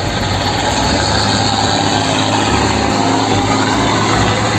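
Truck engine running steadily at a constant level, starting and cutting off abruptly as an inserted sound clip.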